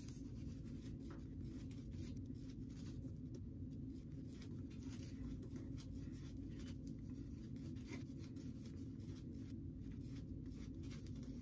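Faint scratchy brushing of a Declaration Grooming B4 badger shaving brush working soap lather into the stubble of the face, many short strokes in a row, over a low steady hum.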